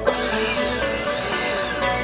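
Background music, with a sudden sharp hit just after the start.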